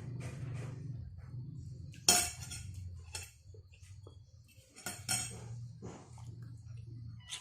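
Spoon and utensils clinking against dishes while eating: a handful of sharp clinks, the loudest about two seconds in and another cluster about five seconds in, over a low steady hum.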